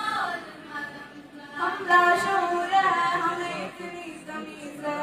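Young female voice singing a manqabat, a devotional song in praise of Imam Ali, into a microphone in long held melodic phrases, louder from just before two seconds in.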